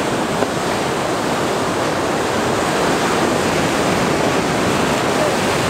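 Steady rushing noise of ocean surf breaking and washing in.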